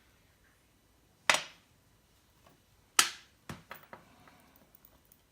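Two sharp clacks about a second and a half apart, then a few lighter clicks: the steel links of a Leatherman Tread multitool bracelet being handled and set down.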